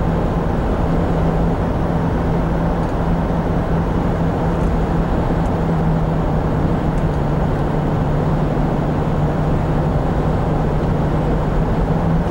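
Cabin noise of a 1997 Chevrolet Blazer being driven, heard from inside the cab. Its 4.3 Vortec V6 gives a steady engine hum over constant road noise.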